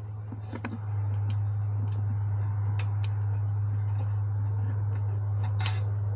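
Scattered light clicks and taps of small parts and screws being handled during reassembly of the motorcycle's air filter housing, over a steady low hum that gets louder about a second in.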